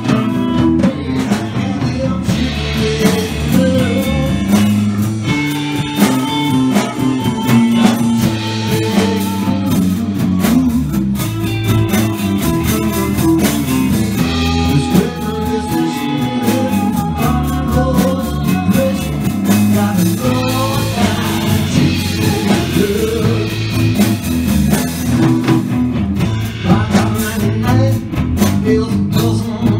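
Live blues band playing, with electric guitars, drums and singing.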